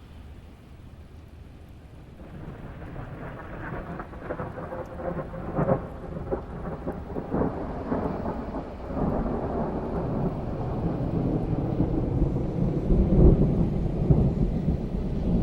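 Thunderstorm: steady rain with a roll of thunder that builds from about two seconds in, crackling at first, then a deep rumble that swells to its loudest near the end.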